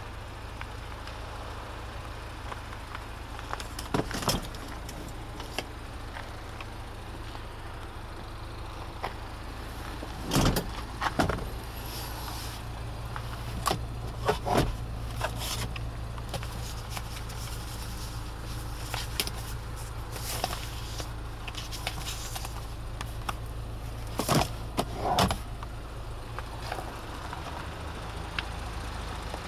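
Scattered clicks and knocks, some in close pairs, from a car's interior fittings being handled, over a steady low hum.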